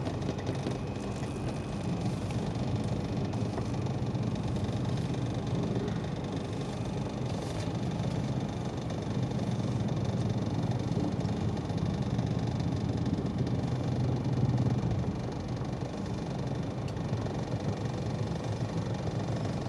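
Car engine and road noise heard from inside the cabin: a steady low rumble with no distinct events.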